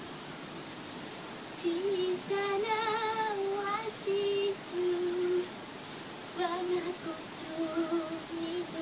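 A woman's voice singing a slow, unaccompanied melody with held, wavering notes, starting about a second and a half in, from an anime soundtrack played on a television.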